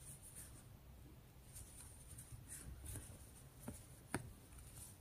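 Faint rustling and scraping of cotton yarn being drawn through stitches with a metal crochet hook, with two small clicks about three and a half and four seconds in.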